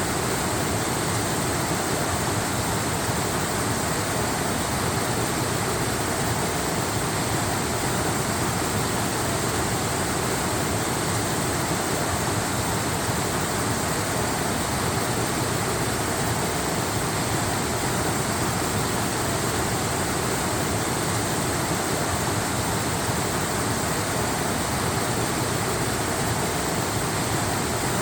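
Waterfall: a steady, unbroken rush of falling water that neither swells nor fades.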